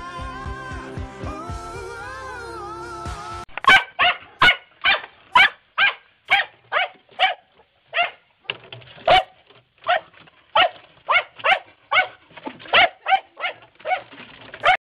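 Pop music with singing cuts off about three and a half seconds in. Then a dog barks over and over, about two sharp barks a second, at a rabbit in its hutch.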